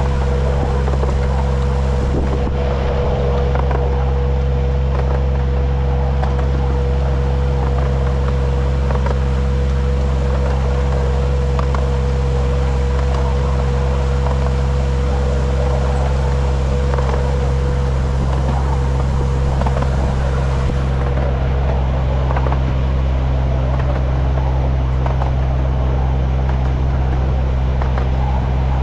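An engine running at a steady speed: a constant low drone that does not change in pitch, with a steady higher whine over it that stops about three-quarters of the way through.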